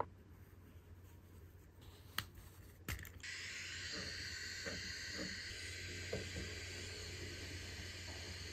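Faint steady hiss comes on about three seconds in, just after two light clicks, over a low steady hum. A few soft knocks sound as the 3D-printed speaker is set in place on the bench.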